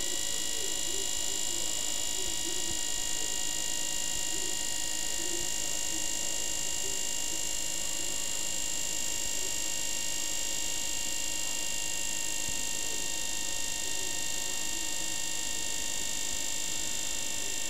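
Small electric motor running steadily on a bank of supercapacitors: a constant electric hum with several high whining tones that do not change.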